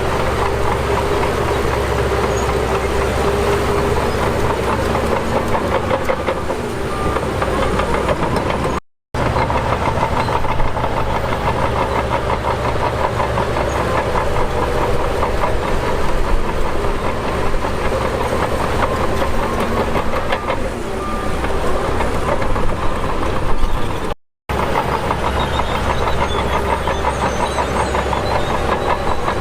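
Heavy construction machinery running: a diesel engine working steadily with a constant clanking rattle, cut off abruptly twice for a split second.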